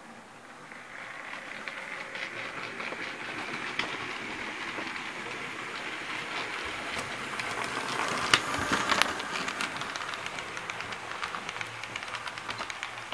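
HO-scale model train running toward and past, its wheels clicking over the rail joints. The sound grows steadily louder, with two sharp clacks about eight seconds in and quick, regular clicking as the cars go by.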